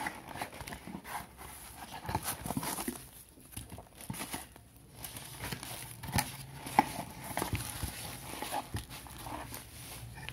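Cardboard shipping box being opened by hand: flaps and inner lid rustling and scraping, with irregular small clicks and one sharper knock about seven seconds in.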